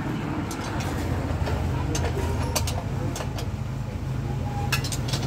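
A few short, sharp metallic clicks of a spanner working at a motorcycle's rear chain adjuster and axle, several close together near the end, over a steady low hum of vehicle engines.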